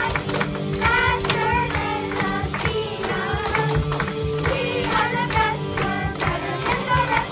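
Children's voices singing a song together over an instrumental backing track with a steady beat.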